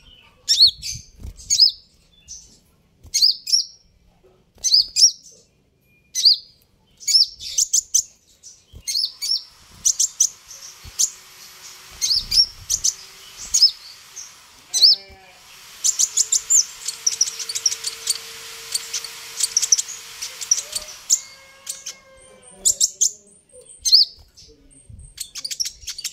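Van Hasselt's sunbird calling: sharp, high chirps about once a second, breaking into a fast, dense twittering from about ten seconds in, then back to spaced chirps near the end.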